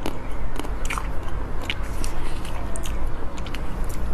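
Close-up mouth sounds of biting into and chewing chocolate-coated cone-shaped sweets, with scattered short, sharp clicks over a low steady hum.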